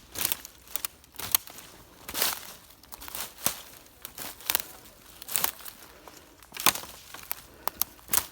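Footsteps through forest undergrowth: dry twigs and leaves crackling and snapping underfoot at an uneven pace.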